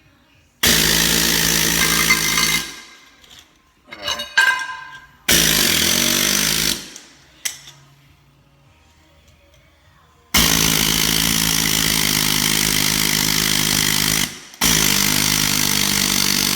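Husky medium-stroke pneumatic air hammer, rated 3,700 blows per minute, chiseling thin-set mortar off concrete in four loud bursts of about one and a half to four seconds each. A few short knocks come in the pause after the first burst.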